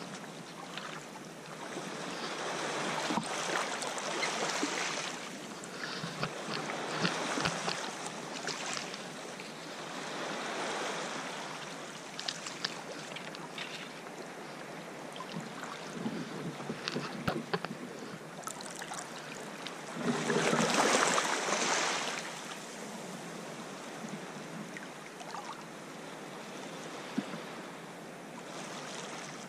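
Small waves washing in and out over a cobble beach in a series of swells, the loudest about two-thirds of the way through, with scattered sharp clicks and knocks.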